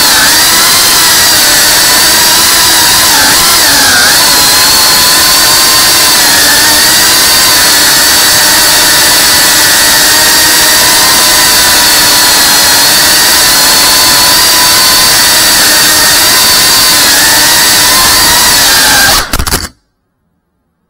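Cinewhoop FPV quadcopter's brushless motors and ducted propellers, heard up close from its onboard camera as a loud, steady whine. The pitch wavers slightly as the throttle changes. It cuts off suddenly near the end.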